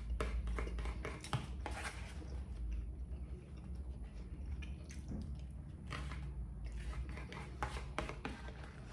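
A person eating: chewing, with irregular small clicks and taps, over a steady low hum.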